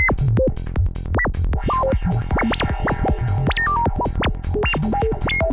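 Synthesizer sine tone jumping and gliding between random pitches several times a second, high and low. A clocked sample-and-hold generator is driving the sine oscillator's frequency in Voltage Modular Nucleus, giving the random bleeping forest-psytrance effect. Beneath it run a steady low tone and rapid clicks.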